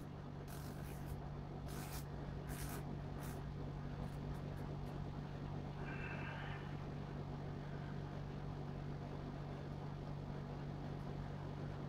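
Steady low background hum, with a few short clicks and rustles of a steel watch and its mesh bracelet being handled in the first few seconds.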